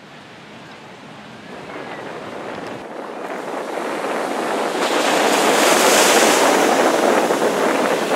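Ocean surf breaking and washing up the shore: a steady rush of water that grows louder over the first five seconds, then holds.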